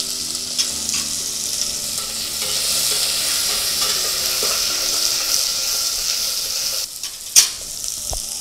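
Shallots and drumstick pieces frying in oil in a steel pot, a steady sizzle with a spoon stirring through them. The sizzle drops off about seven seconds in, followed by one sharp clink of the spoon on the pot.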